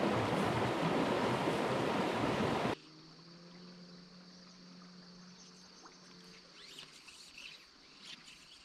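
Loud rushing noise of wind buffeting the microphone beside a stream, cut off suddenly about three seconds in. After that comes a quiet stream pool with faint high chirping and a faint low hum.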